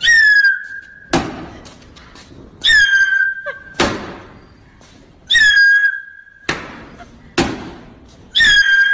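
A dubbed comedy sound effect repeated in a steady loop: a short whistle that dips slightly in pitch and then holds, followed about a second later by a thud. The whistle sounds four times, the last near the end.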